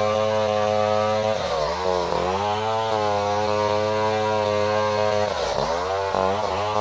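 Stihl 070 two-stroke chainsaw running at high revs, as when ripping a durian trunk lengthwise. Its pitch dips twice, about a second and a half in and again near the end, and climbs back.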